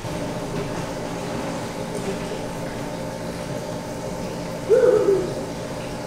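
Steady hum made of several even tones. A short pitched call, falling slightly, rises above it about five seconds in.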